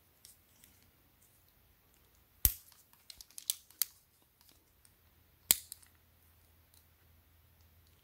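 Hand wire stripper being opened and handled: a sharp metal snap, a quick run of lighter clicks, then a second sharp snap about three seconds after the first.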